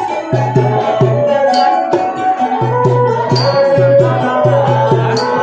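Khmer traditional ensemble playing: a man sings over a bowed two-string fiddle (tro), with repeated low drum notes and a sharp high metallic strike about every second and a half to two seconds.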